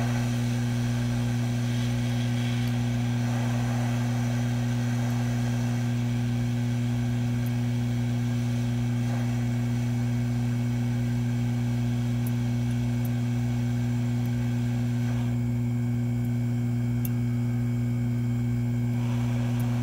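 Hot air rework station running: a steady mains-pitched hum from its blower over a faint hiss of air, cutting off abruptly at the very end.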